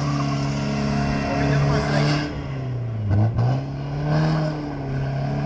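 BMW car's engine running hard as it drifts in circles on loose dirt, held at fairly steady high revs. About three seconds in, the revs drop sharply and then climb again.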